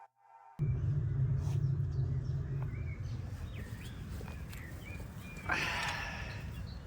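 Outdoor ambience with a steady low rumble, small birds chirping briefly now and then, and one short, louder call a little over five seconds in.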